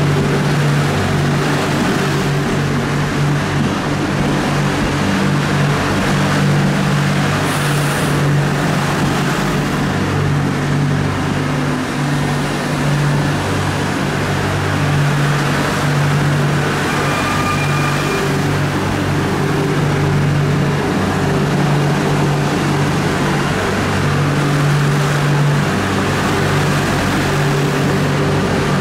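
Double-deck RER electric commuter train moving slowly alongside the platform, its electric traction equipment giving a steady low droning hum that swells and eases. A brief hiss comes about eight seconds in, and a short high whine a little after halfway.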